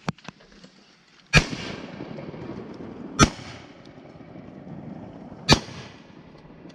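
Three shotgun shots at ducks, about two seconds apart, each a sharp loud blast.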